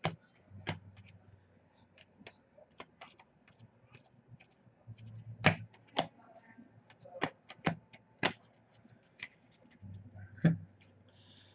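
Trading cards being handled and sorted on a table: irregular sharp clicks and taps as cards are flicked through and set down, with a few louder snaps.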